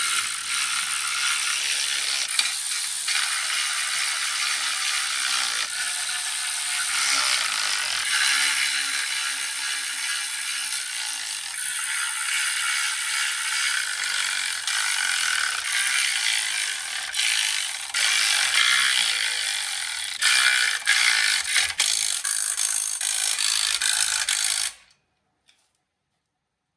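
Ratchet wrench clicking rapidly and continuously as bolts are run down, with scattered sharper clicks; it stops abruptly about 25 seconds in.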